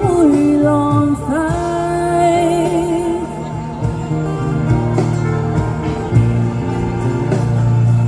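A woman's voice holds a long sung note with vibrato over a pop ballad backing track, ending about three seconds in; the instrumental backing track then carries on alone.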